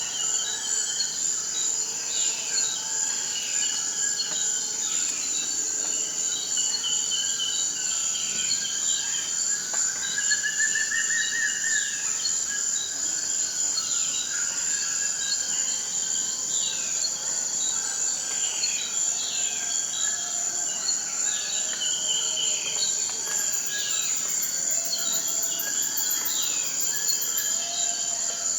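Rainforest ambience: a steady, high insect drone with many short falling bird calls repeating over it. A second, higher insect buzz joins for a few seconds near the end.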